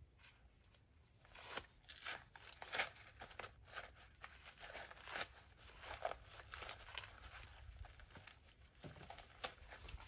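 Faint, irregular crackling and crunching of dry corn stalks, leaves and husks as ears of field corn are picked by hand.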